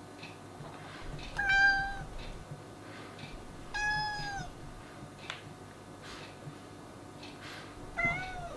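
A cat mewing three times: short, high meows that drop in pitch at their ends. The first is the loudest, the second comes about two seconds later, and the last is near the end.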